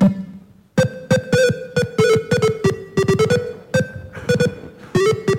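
Retro 8-bit computer-game music: a quick run of short buzzy beeping notes over a clicking beat.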